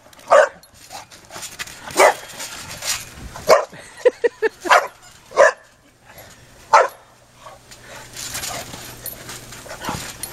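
English bulldog puppy barking in short, separate barks, with a quick run of four short yips about four seconds in.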